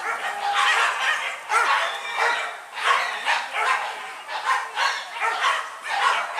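A pack of hunting dogs barking, with short sharp barks coming in quick succession, about two or three a second.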